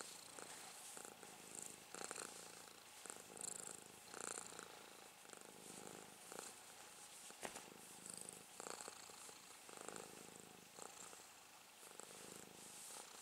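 Domestic cat purring softly while its chin and cheeks are stroked, with light rustling of fingers in its fur and a single brief click about halfway through.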